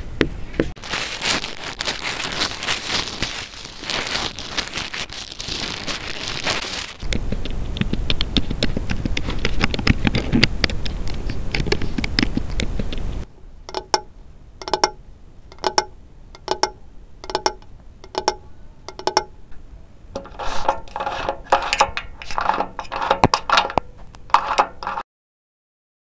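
A sequence of close contact-microphone recordings of objects being handled. First several seconds of dense crackling and scraping, then a lower, rumbling scrape, then about ten separate ringing, pitched knocks, then a quicker rattle of pitched knocks that cuts off suddenly.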